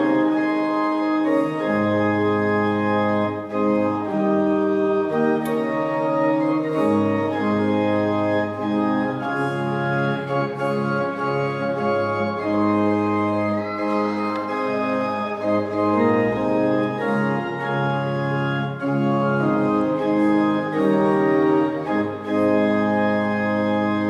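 Church organ playing a slow piece in sustained chords that change every second or two.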